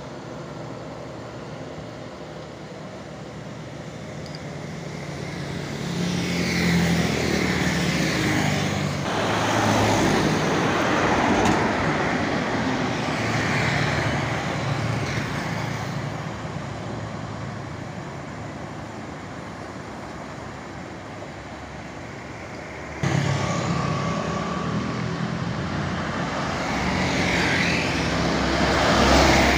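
Road traffic passing: trucks, a car and motorbikes, engines running with tyre noise. The sound swells as vehicles go by, jumps up abruptly about three-quarters of the way through, and is loudest near the end as a truck comes past.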